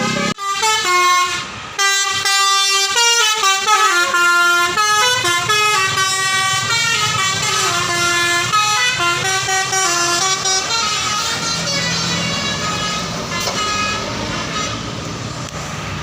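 A bus's telolet basuri musical horn plays a melody of stepped notes for about ten seconds, then stops, leaving engine and road noise.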